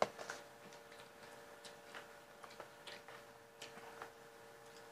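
Close-up eating sounds from people eating by hand: irregular soft clicks and smacks of chewing and of fingers working rice, with a sharper click at the very start. A faint steady hum runs underneath.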